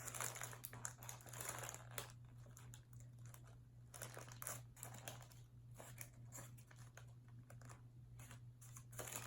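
Faint, irregular crinkling of a fast-food burger's paper wrapper being handled.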